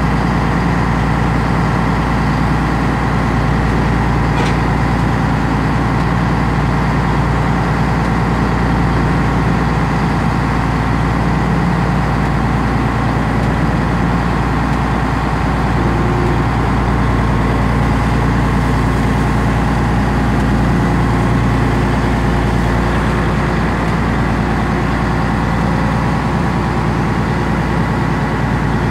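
Boat engine running steadily under way, a loud, even drone with the rush of the churning wake alongside.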